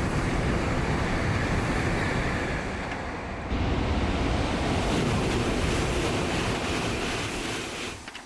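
Shinkansen bullet train passing at speed about two metres away: a loud rush of air and wheel noise, buffeting the microphone, that falls away sharply near the end.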